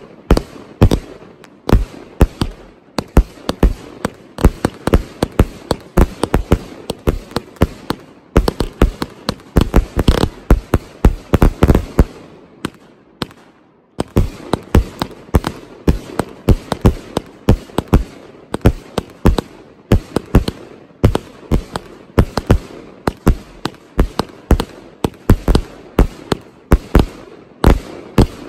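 Vulcan 'Over the Top' 144-shot compound firework cake firing a rapid barrage of shots and aerial bursts, a few sharp bangs a second. About halfway through the bangs die away for a second or two, then the barrage starts again abruptly.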